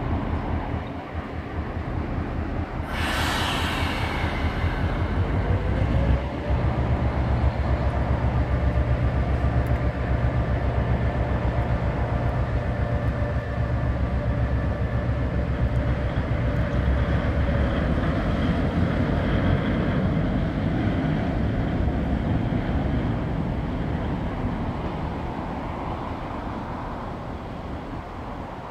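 Diesel engine of an EMD G-16 locomotive running as it shunts: a brief hiss about three seconds in, then the engine throttles up about six seconds in with a steady whine over its low running sound. The sound fades gradually near the end as the locomotive pulls away.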